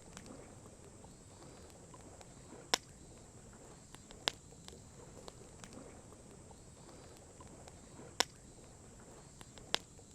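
Wood campfire crackling, with a few sharp pops spaced a second or more apart over a faint steady background.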